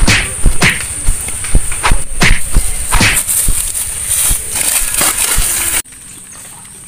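Two people scuffling in grass: a string of irregular thumps, knocks and scrapes of bodies and feet over a steady high hiss, cut off suddenly about six seconds in, leaving quieter outdoor background.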